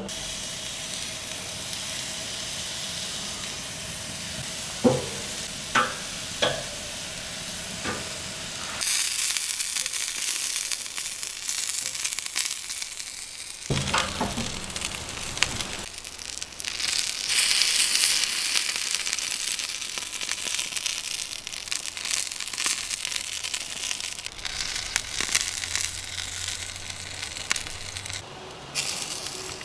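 Bacon-wrapped crow meat and crow legs sizzling on a hot gas grill. A few sharp knocks come from food and tongs on the grate early on, and the sizzling swells loud about nine seconds in.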